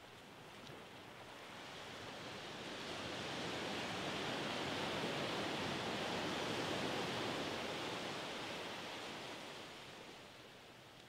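Gentle surf at the shoreline: a small wave breaks and its wash runs up the sand with a soft hiss, swelling over a few seconds and then fading away.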